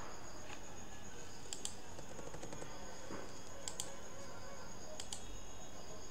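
Three pairs of short, sharp clicks from a computer mouse and keyboard being worked, over a steady background hiss with a faint high whine.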